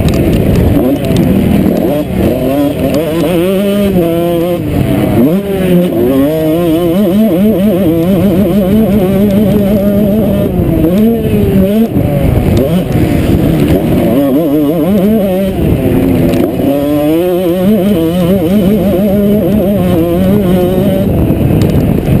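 Motocross bike engine heard on board while racing, revving up and dropping back again and again as the rider works the throttle and gears over the track.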